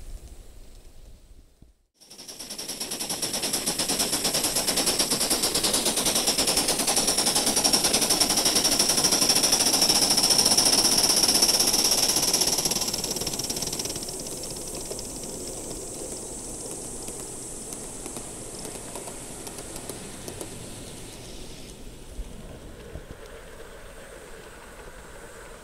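Aster Gauge 1 live-steam model of a two-cylinder class 52 steam locomotive running close by: rapid steam exhaust beats with the clatter of its wheels and rods on the track. The sound starts suddenly after a brief gap about two seconds in, is loudest in the middle and then eases as the locomotive moves away.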